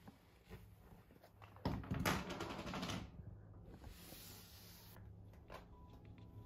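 Handling noise as the camera is set up on a wooden table: sweatshirt sleeves rustling and a few light knocks, loudest about two seconds in. Soft background music comes in near the end.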